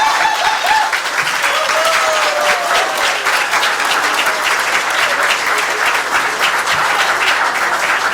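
Theater audience applauding, a dense steady clapping, with a few cheering voices rising over it in the first few seconds.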